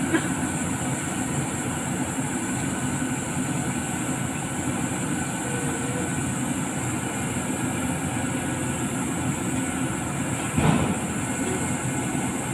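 Large diesel engine running steadily, with one short knock about ten and a half seconds in.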